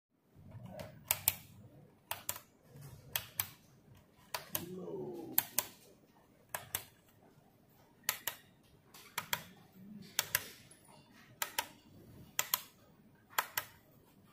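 Rocker switch on a power strip clicked again and again, a pair of sharp clicks about once a second, switching the plugged-in LED light strings on and off.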